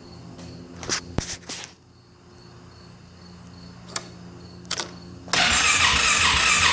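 A few light clicks, then a bit past five seconds in a Polaris Sportsman 570's electric starter starts cranking its single-cylinder engine, loud and with an even pulse. This is the crank-no-start fault: the engine turns over but doesn't fire.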